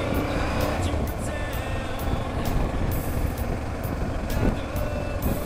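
Motorcycle riding through traffic, heard from a helmet-mounted camera: the engine runs under heavy wind rumble on the microphone, and its note falls near the start as the bike eases off.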